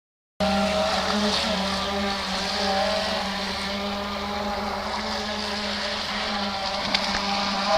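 NDQ PX-16 electric RC boat running under power: a steady motor whine over the hiss of water.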